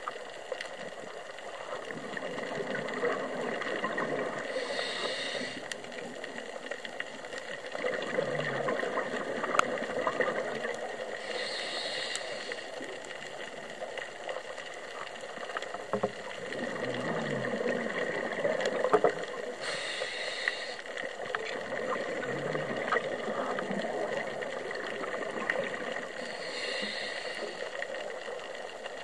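Underwater sound on a scuba dive: a diver breathing through a regulator, with a hiss about every seven or eight seconds and bubbling exhalations swelling between them, over scattered faint clicks.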